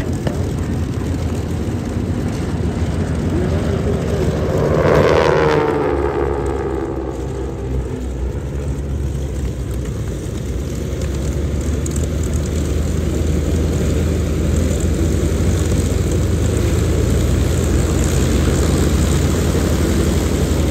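Formation of North American T-6 Texan trainers, their radial piston engines droning together in the air. About five seconds in, the sound swells and drops in pitch as the planes pass, then the drone builds again.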